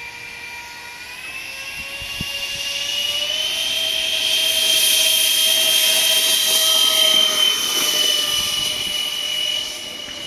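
A radio-controlled Boeing 747 model's engines whining and spooling up for the takeoff run. The pitch rises over the first few seconds, then holds steady as the sound grows louder. It drops away suddenly near the end.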